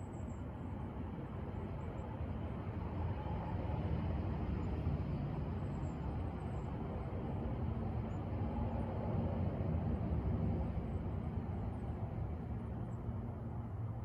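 Low, steady engine rumble that swells through the middle and eases off again.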